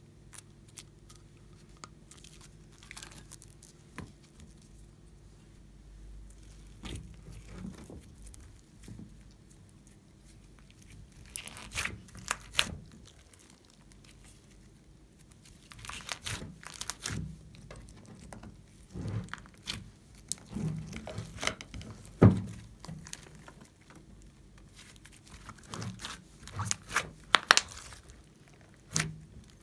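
Hands stretching, pulling and pressing glossy slime mixed with clay and foam beads. The slime gives off scattered sticky clicks and crackles as it stretches and tears apart. These are sparse at first and busier from about a third of the way in.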